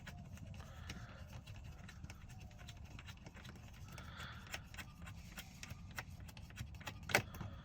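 Faint, irregular small clicks and light scrapes of hands working loose a screw and plastic dashboard trim, with one louder click about seven seconds in.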